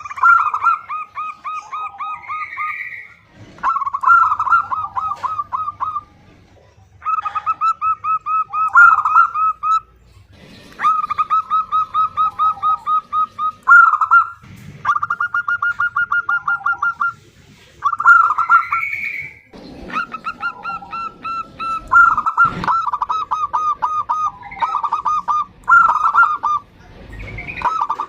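Female zebra dove (perkutut) calling: repeated runs of quick, short cooing notes, each run lasting about two seconds, with brief pauses between them that shorten toward the end.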